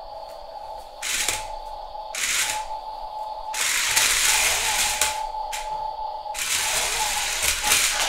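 Toy stunt RC car's electric motors and gears whirring in bursts as it drives on a laminate floor under bracelet (gesture) control: four bursts, the third and longest lasting nearly three seconds, over a steady high whine.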